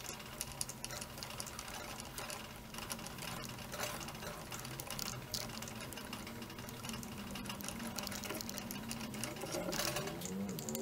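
Light clicks and scrapes of a hand tap being turned in a tap wrench in a vised metal block, over a steady mechanical hum. Near the end, a whine rises in pitch.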